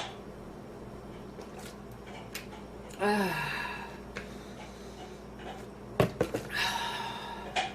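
A woman's short voiced exhale falling in pitch about three seconds in, as she recovers from a coughing fit. About six seconds in come two sharp knocks, then a breathy rush of noise.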